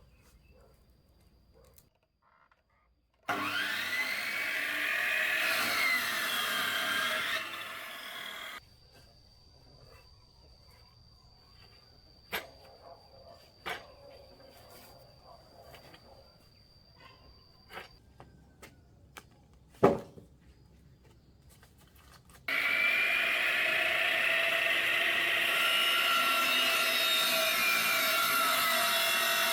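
A power saw cutting wood in two stretches: one about three seconds in, lasting some five seconds, and another from about two-thirds of the way through. Its whine bends up and down as the blade meets the wood. A few sharp knocks fall in the quieter gap between.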